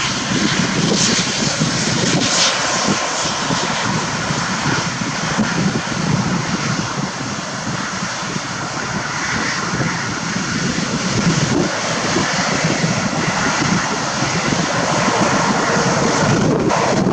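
Jet airliner engines at takeoff thrust: a loud, steady rush of noise with a strong low rumble, easing a little midway and building again toward the end.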